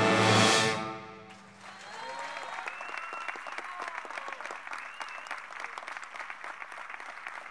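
Symphonic wind band and baritone saxophone end on a loud held final chord that cuts off about a second in. After a brief pause the audience breaks into steady applause, with a few shouted cheers over it.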